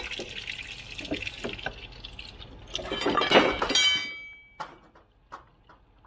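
Hydraulic fluid splashing and spattering, then at about three seconds a forklift's hydraulic lift cylinder drops unexpectedly and crashes into a ladder with a loud clang that rings for about a second. A few light knocks follow.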